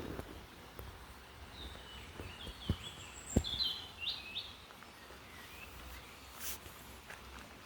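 A songbird singing a short burst of bright chirps and trills about two to four seconds in, over a faint outdoor rumble, with a couple of soft knocks.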